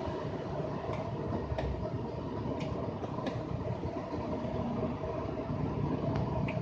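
Stir-frying the seasoning paste for nasi goreng in a wok: a steady low roar of cooking, with a few sharp clicks of the spatula against the wok.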